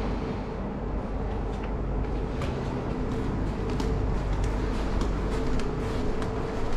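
Steady driving noise of a car on the road: a continuous low rumble of tyres and engine with scattered light ticks.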